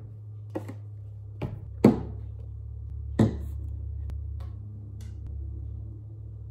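Plastic bottles set down one after another on a wooden tabletop: four sharp knocks, the loudest about two seconds in, then a few lighter ticks.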